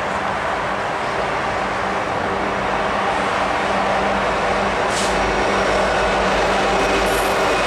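Diesel locomotives of a CN freight train approaching: a steady engine drone and rumble that slowly grows louder, the low rumble building in the second half. A brief hiss about five seconds in.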